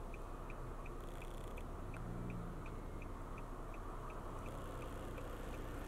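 Steady low rumble of an idling vehicle, with a faint high tick repeating evenly about three times a second.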